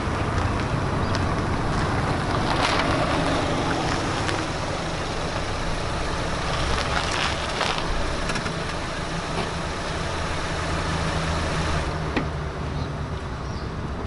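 Car driving up slowly and coming to a stop, its engine running with a steady low hum.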